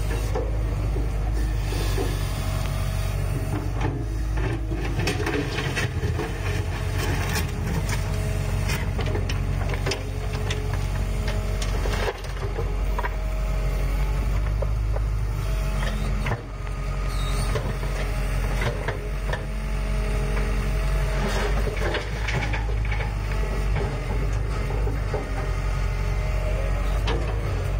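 Hitachi Zaxis 135US excavator's diesel engine running steadily while it digs and loads, with repeated knocks and clatter of soil and rock spilling from the bucket into a steel dump-truck bed.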